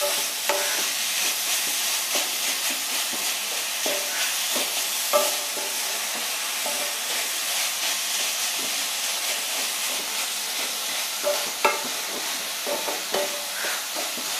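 Wooden spatula stirring and scraping a grated-coconut and jaggery filling around an aluminium kadhai, over a steady frying hiss from the ghee on a low flame, with a few sharper knocks of the spatula on the pan. The filling is being roasted until the jaggery melts.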